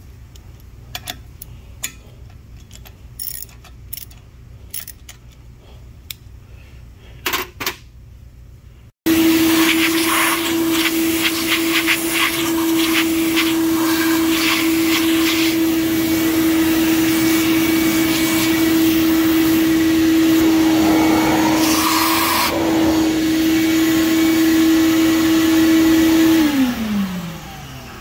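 Faint scattered metallic clicks, then an electric vacuum motor starts abruptly and runs loud and steady with a hiss of rushing air. The hiss swells briefly partway through, and near the end the motor cuts out and spins down in a falling whine.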